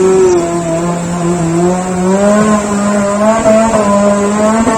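Off-road 4×4 jeep engine held at high revs, its pitch wavering slightly and climbing a little about halfway through, as the jeep labours slowly along the muddy track.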